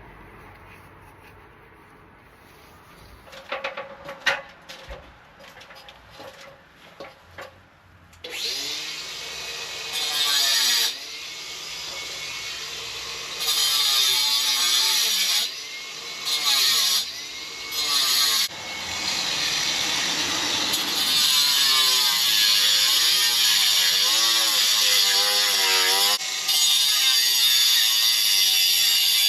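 A handheld power tool starts about eight seconds in and runs loudly, its pitch rising and falling as it is loaded, with brief drops in between. Before it, a few light knocks and scrapes.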